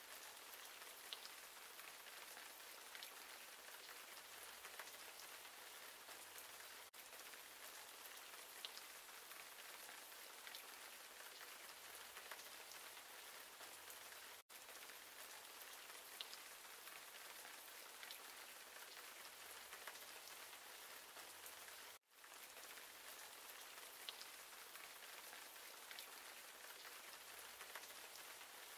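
Faint, steady rain-like patter with a few faint ticks, cutting out briefly three times.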